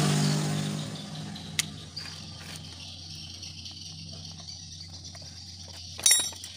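A motor vehicle's engine in the background fades away over the first two seconds. A single click follows, then a short metallic clink and jangle of small metal parts about six seconds in.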